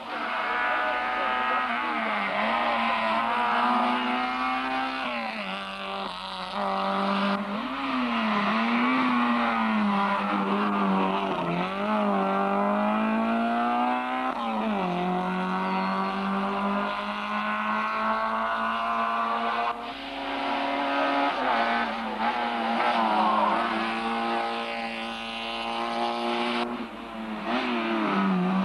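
Rally car engines revving up and down through the gears at speed on a stage, the pitch repeatedly climbing and dropping. The sound breaks off abruptly about 7 s, 20 s and 27 s in, as it switches from one car to the next.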